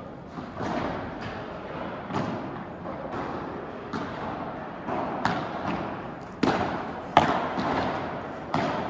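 Padel rally: the ball is struck by rackets and bounces off the court and walls, about ten sharp hits at an irregular pace, each with a short echo. The loudest two come close together near the end.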